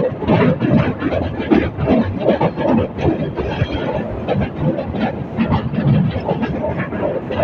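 Metre-gauge train running, heard from on board: a steady rumble with a dense, irregular clatter of wheels over the rail joints and the coach rattling.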